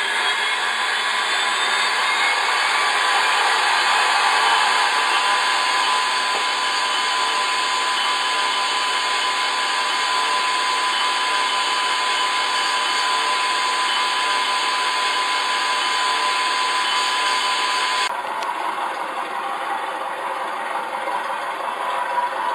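Sound module in a Tamiya Scania RC truck playing a simulated diesel truck engine through its small speaker, running steadily and buzzy, with a thin steady whistle-like tone over it. About eighteen seconds in the sound changes abruptly.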